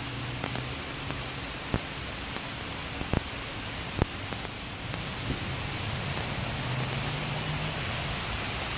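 Steady outdoor background hiss of a city park, growing a little louder toward the end, with a few sharp clicks about two, three and four seconds in.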